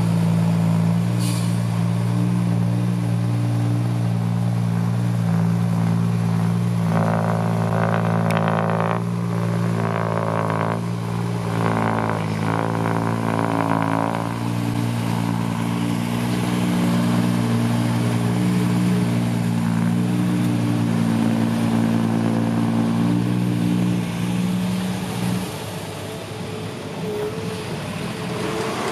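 Heavy diesel engine running at a steady speed under load. A higher, tonal whine rises over it in three stretches in the middle. The engine sound drops away suddenly near the end.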